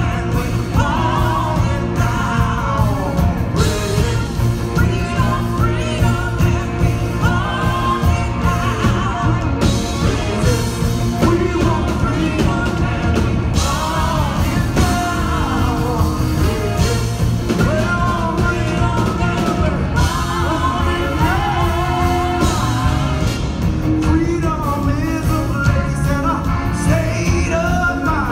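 Live band with drums, electric guitar, trumpet and saxophone playing a driving groove, while a woman and a man sing lead into microphones.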